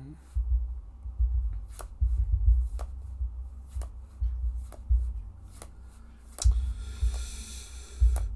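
Playing cards being handled on a tabletop: scattered sharp clicks and taps about once a second over dull low knocks, with a short rustle of cards near the end.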